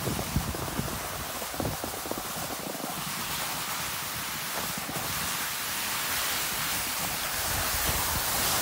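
Wind blowing across a phone's microphone: a steady rushing hiss with a few low buffets in the first couple of seconds.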